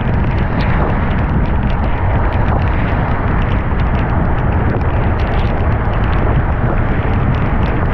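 A car driving through torrential typhoon rain: a loud, steady rush of rain and tyre noise over a deep rumble, speckled with many small ticks of raindrops striking the car.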